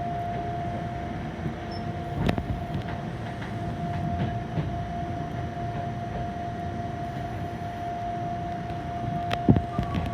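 Fukui Railway 770-series tram running at restricted speed: a steady low rolling rumble with one constant whine, and sharp clacks from the rails about two seconds in and twice near the end.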